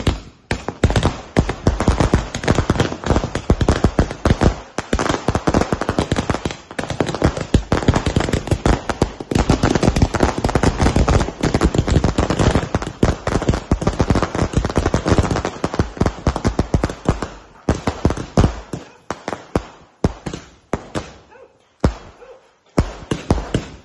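A 250-shot skyshot firework battery firing: a rapid, unbroken string of bangs and crackles, thinning to scattered separate bangs over the last several seconds.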